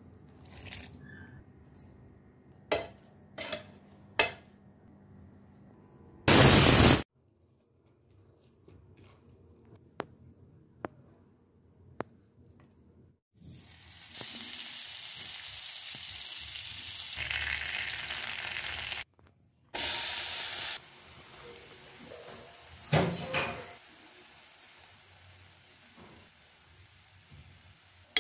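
Butter and oil sizzling and bubbling in a hot steel pan, a steady frying hiss for several seconds, with scattered clicks and knocks of a utensil against the pan. Two short, very loud bursts of noise are the loudest sounds.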